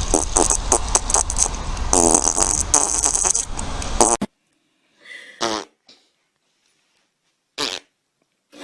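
A long, loud fart sound, made of rapid uneven pulses, that cuts off suddenly about four seconds in. It is followed by three short, separate sounds with quiet between them.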